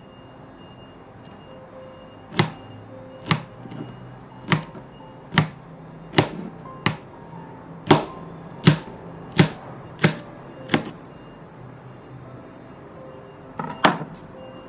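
Chef's knife chopping okra into rounds on a cutting board: about eleven sharp chops, roughly one a second, then a pause and a quick double chop near the end. Soft background music runs underneath.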